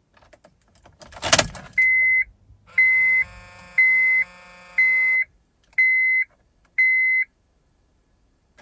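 Car keys jangle as the ignition of a 2007 Honda CR-V is switched on. Then the dashboard warning chime beeps six times, about a second apart, with a second tone sounding under the middle beeps.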